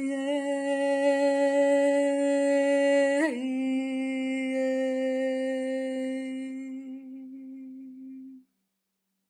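Closing music: a single wordless vocal note held long and steady, stepping slightly lower about three seconds in, then fading out shortly before the end.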